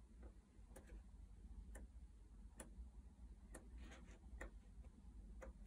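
Faint, sharp ticks about once a second, with the soft rustle of a large hardcover book's page being turned about four seconds in.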